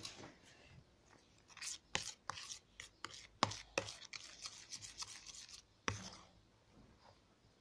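Metal spoon stirring a thick paste of dish soap and baking soda in a plastic tub: irregular scrapes and clicks of the spoon against the tub, stopping about six seconds in.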